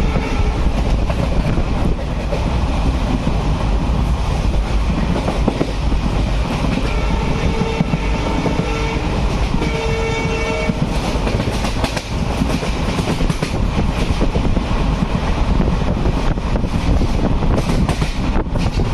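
Passenger train running with a steady rumble and rattle of the coaches on the track. About halfway through, the locomotive horn sounds in two blasts, the second shorter.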